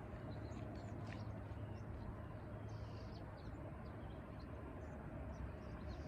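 Faint outdoor background: a steady low hum with a few scattered, faint bird chirps.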